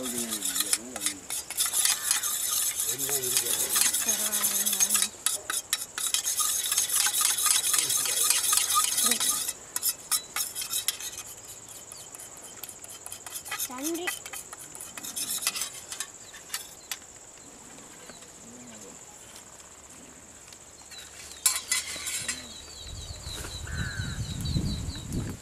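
A thin metal rod stirring and scraping around a stainless steel kidney dish, mixing a paste: rapid and continuous for about the first nine seconds, then quieter, with only occasional scrapes and clinks.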